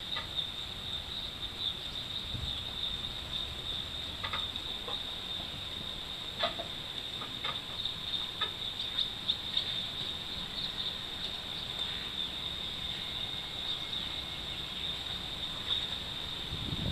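Insects in the surrounding forest trill in a steady, unbroken high-pitched chorus. A few short faint ticks come through in the middle.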